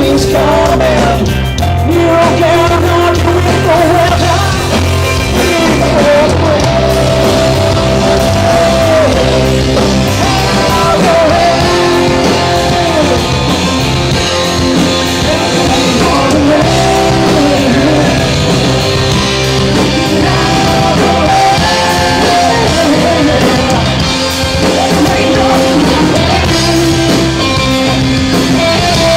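Live rock band playing a song: guitar, bass and drums under a melodic lead line that bends in pitch, loud and unbroken.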